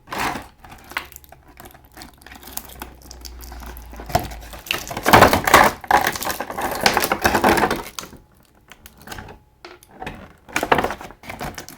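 Small hard plastic action-figure parts clicking and clattering as they are handled and pressed onto pegs, with irregular sharp clicks and a denser run of clatter in the middle.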